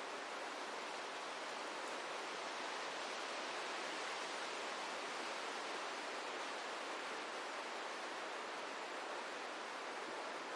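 Wind blowing steadily through forest trees, a continuous rustling hiss of leaves with no gusts or breaks.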